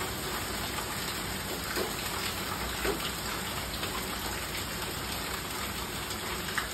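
Rain mixed with hail pouring down: a steady hiss with a few sharper ticks here and there.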